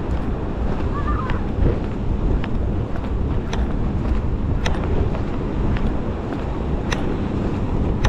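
Wind buffeting the microphone in a steady low rumble, with a few sharp clicks.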